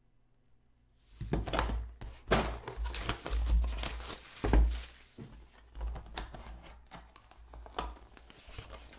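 Small cardboard trading-card box being handled and torn open: crinkling, tearing and light thunks with scattered clicks, starting about a second in.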